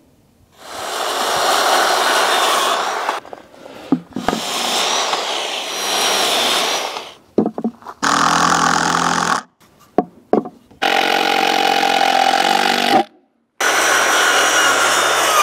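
Corded circular saw cutting lumber and OSB sheet, alternating with a cordless drill driving screws into the wood. The tools run in several separate bursts that start and stop abruptly: two long saw cuts, two shorter whining drill runs past the middle, and another saw cut near the end.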